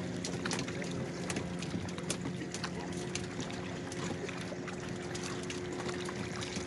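A crowd of small fishing boats on the water: a steady low engine hum under a busy patter of irregular knocks and splashes from the fishermen's poles and gear.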